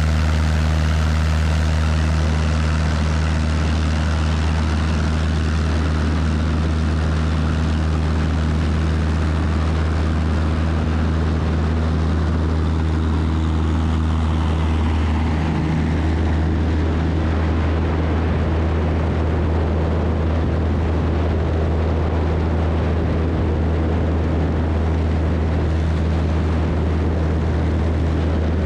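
Cessna 172's piston engine and propeller running at full takeoff power through the takeoff roll and climb-out, a loud, steady drone that changes slightly about halfway through.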